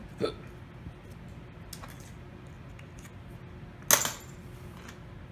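Light clicks and taps of small hard objects being handled, then one sharp metallic clack about four seconds in, as a small tool or part is set down on a hard surface.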